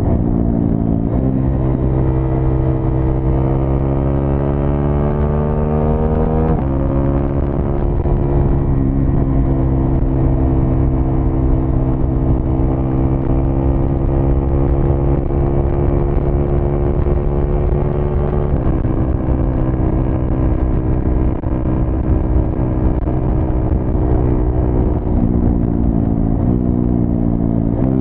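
KTM Duke 390 single-cylinder engine running through a Cobra Sport SPX-O aftermarket exhaust. The pitch climbs over several seconds and then drops suddenly, about six seconds in and again about eighteen seconds in, with another climb near the end.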